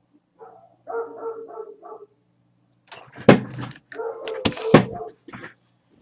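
A dog yipping and whining in short pitched cries, with three sharp knocks between about three and five seconds in.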